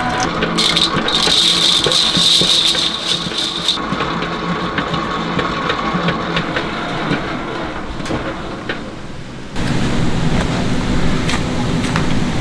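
Electric dough mixer running as it kneads dough, with rattling. About ten seconds in, the sound switches abruptly to a louder, steady low machine hum.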